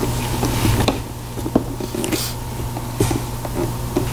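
Steady low hum with a few short clicks and knocks scattered through it.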